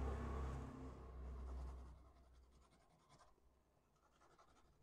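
Faint scratching of a pencil on drawing paper, after a low rumble that fades out about two seconds in.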